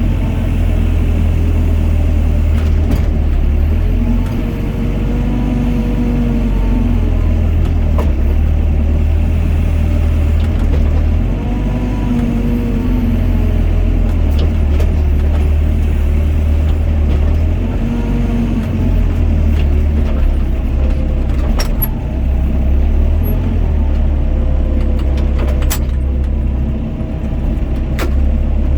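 Doosan DX55 mini excavator's diesel engine running under load, with a pitched whine that rises and falls about every six seconds as the arm and bucket work through their dig-and-dump cycles. A few sharp knocks come near the end.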